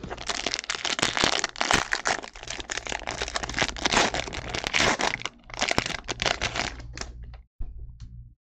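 Crinkling and crackling of a trading-card pack wrapper and cards being handled close to the microphone, with many small sharp cracks; it breaks off shortly before the end.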